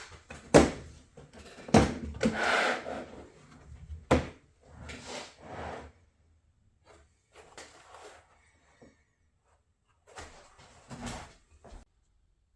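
Packaging and a case being handled: several sharp knocks and clicks with rustling between them, quieter scattered handling in the second half.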